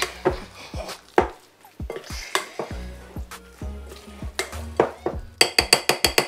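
A utensil stirring a thick bean-burger mixture in a glass bowl, knocking and scraping against the glass as self-raising flour is worked in. In the last second comes a quick run of taps, about eight a second.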